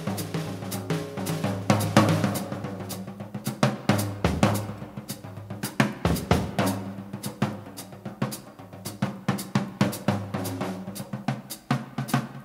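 Background music with a drum kit: snare, bass drum, hi-hat and cymbal hits over a bass line.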